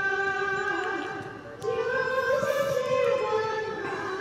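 Music with a high singing voice holding long notes, with a short break about a second and a half in before the next phrase.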